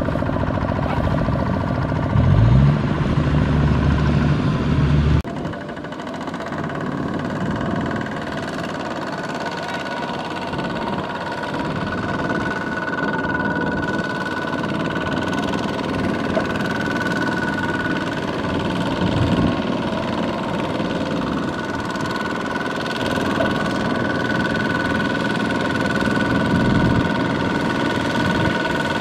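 Two-wheel walking tractor's single-cylinder diesel engine running under load while it pulls a loaded trailer through a muddy rice field. A louder, lower engine note for a few seconds near the start changes abruptly about five seconds in to a steadier running sound.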